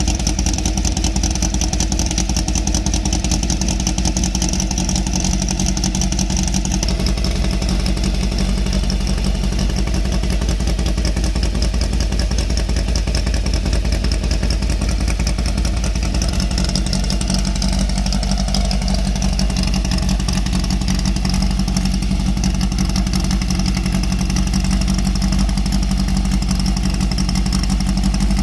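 Classic VW Beetle's air-cooled flat-four engine running steadily, its sound shifting slightly a quarter of the way in and again past the halfway point.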